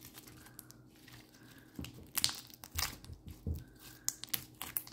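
Peachybbies foam slime with foam beads being squeezed and stretched by hand, giving a series of small, irregular pops and crackles that start about two seconds in.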